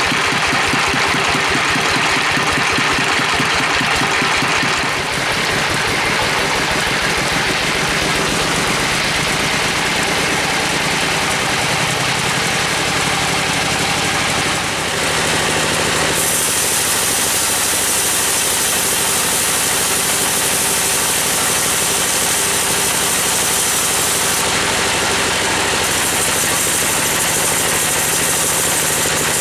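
Engine of a log-sawing machine running steadily under load, with a continuous engine note. About halfway through, a harsh high hiss joins it; it drops out briefly and returns near the end.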